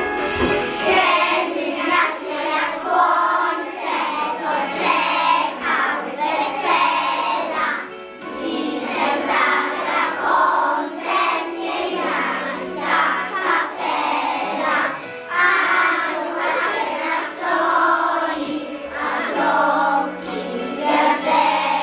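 A group of young children singing a song together, over an instrumental accompaniment with held bass notes that change every couple of seconds.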